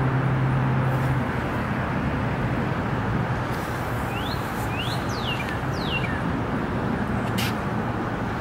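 Outdoor ambience: a steady rushing background noise, with a low hum that stops about a second in. A bird chirps four quick times in the middle, and there is a single sharp click near the end.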